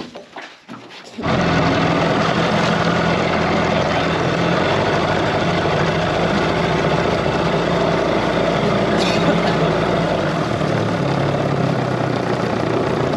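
A few knocks in an aluminium boat's hull, then about a second in a small outboard motor starts running steadily, driving the dinghy along with a low hum under a steady rush of wind and water noise.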